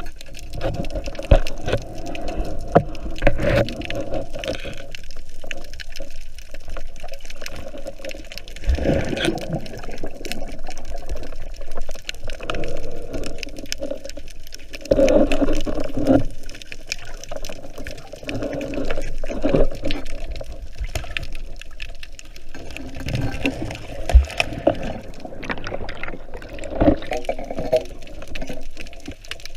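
Water sloshing and bubbling around a camera held at and under the sea surface, muffled and surging in waves every few seconds, with scattered sharp clicks and knocks.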